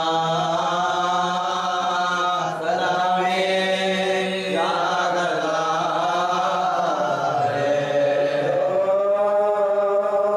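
A man's voice reciting an Urdu marsiya (elegy) as a slow, unaccompanied chant, holding long notes that slide up and down, over a steady low hum.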